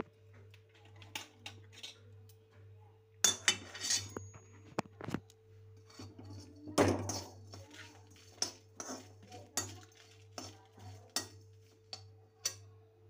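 Steel spoon scraping and clinking against a metal kadhai as whole spices and garlic cloves are stirred: irregular taps and scrapes, the loudest about three and seven seconds in, over a faint steady hum.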